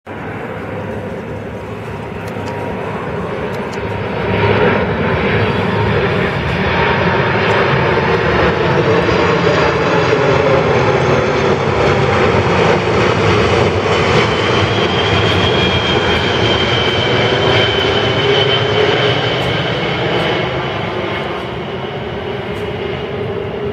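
Boeing 747-400's four Rolls-Royce RB211 turbofans passing low overhead on landing approach: a steady jet roar that swells about four seconds in and eases near the end. In the second half a high whine drifts slightly lower in pitch.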